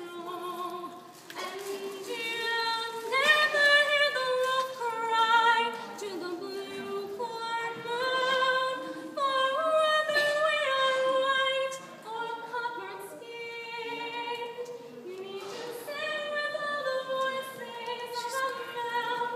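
A woman singing solo, holding long sustained notes one after another.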